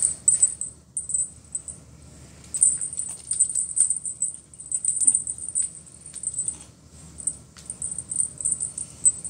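Feather wand cat toy jingling in quick, irregular shakes as it is waved, with a few light taps.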